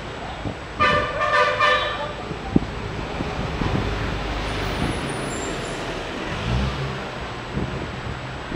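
Outdoor traffic ambience: a vehicle horn toots several times in quick succession about a second in, over a steady hum of road noise.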